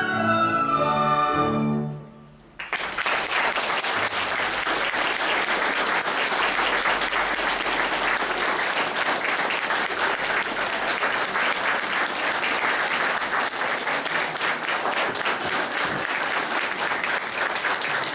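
A children's recorder ensemble ends a tune on a held final note, then an audience applauds steadily from about three seconds in.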